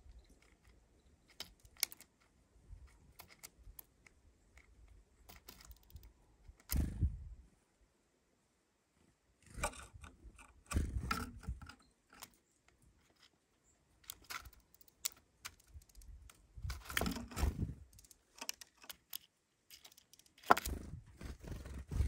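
A Japanese tit at a plastic bowl of sunflower seeds: scattered sharp clicks and light rattles of seeds and shells being picked over, and claws on the rim. There are a few louder bursts of rustling and knocking.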